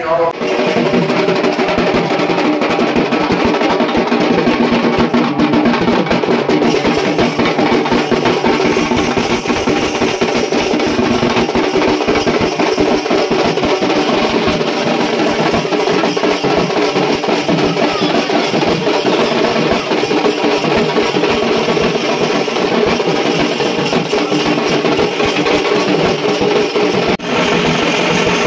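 Music carried by fast, continuous drumming, with steady held notes beneath; it breaks off briefly near the end.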